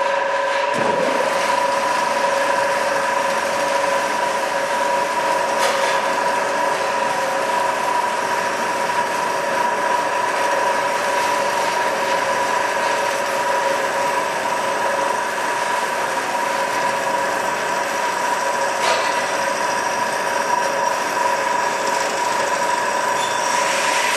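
Amada HA250W hydraulic horizontal band saw running in automatic mode, its blade cutting through bar stock with a steady machine noise and a steady high tone. Two faint clicks come about six seconds in and again near the end.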